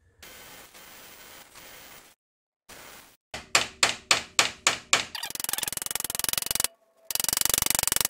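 Head of a timing-chain connecting-link pin being ground down, heard in separate stretches of rasping metal noise, the last and loudest near the end. In the middle comes a run of about eight sharp knocks, roughly four a second.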